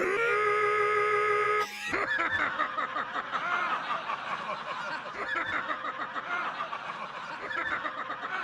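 A loud, steady pitched tone is held for under two seconds and then cut off sharply. A crowd then laughs and jeers.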